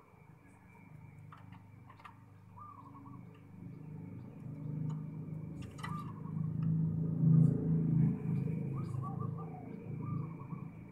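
Zebra dove (perkutut) giving short warbling coos several times. Under them a low rumble swells and fades, loudest past the middle, and there is a sharp click about six seconds in.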